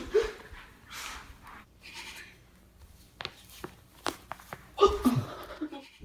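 Breathy laughing and panting, then a quick run of about six small cracks from about three seconds in, as the spine pops under the feet stepping on the back, followed by a short vocal reaction.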